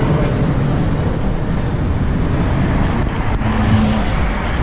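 Street traffic: steady noise of cars on a city street, with a brief low hum about three and a half seconds in.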